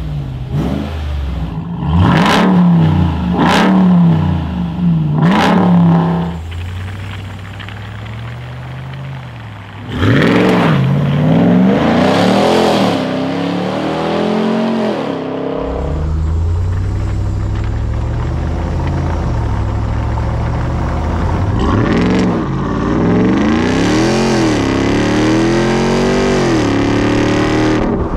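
Ram TRX's supercharged 6.2-litre V8 through a custom dual exhaust with valves: three quick throttle blips in quiet mode with the valves closed, then, from about ten seconds in, much louder revs in loud mode with the valves open as the truck pulls away and accelerates, the engine pitch rising and falling.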